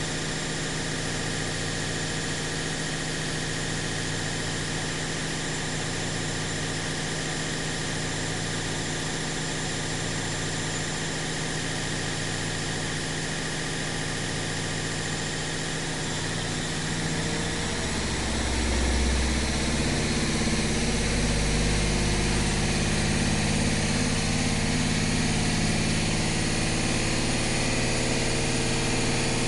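Washing machine running, a steady mechanical hum with a low throb repeating about every second and a half. About two-thirds of the way through the machine gets louder and deeper, and the steady running continues at that higher level.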